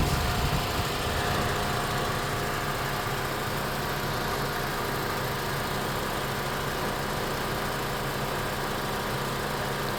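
Honda CR-V idling, a steady, unchanging mechanical running noise.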